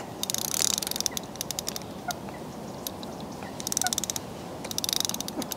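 Carp fishing reel's clutch clicking in four quick bursts of rapid ratcheting as it is adjusted and the handle is turned by hand.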